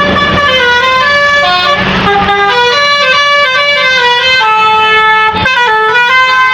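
A tour bus's basuri musical horn playing a tune: a run of held notes stepping up and down in pitch.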